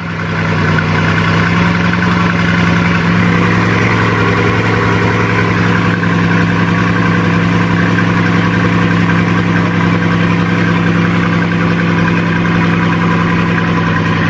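Bugatti Chiron's quad-turbocharged 8.0-litre W16 engine idling at a steady, even pitch through its exhaust.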